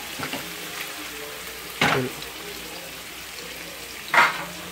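Masala-marinated chicken pieces sizzling steadily as they sear in a nonstick (Teflon) frying pan. Two brief louder sounds break in, about two seconds in and near the end.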